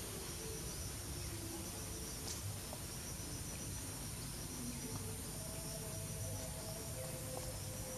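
Outdoor ambience: a steady low hum with faint, high insect chirping that repeats in short trills.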